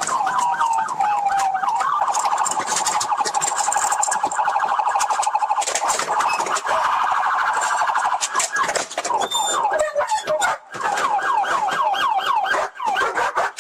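Police car siren switching modes: a fast yelp sweeping up and down several times a second, then a quicker warble for several seconds, then back to the yelp. Scattered sharp clicks sound over it.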